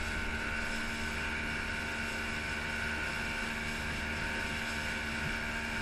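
90 hp Mercury two-stroke outboard running steadily at speed under the load of towing two ski tubes, over a constant rush of churned wake water.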